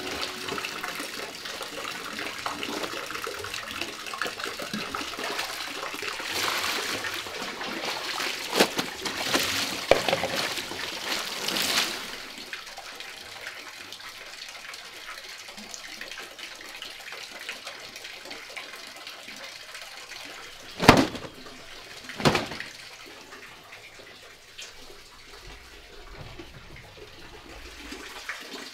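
Clothes being hand-washed at a concrete washing sink: wet cloth scrubbed and splashed against the ribbed concrete, with a few sharp strokes in the first half. Then a steadier sound of running water, broken by two sharp smacks about two-thirds of the way through.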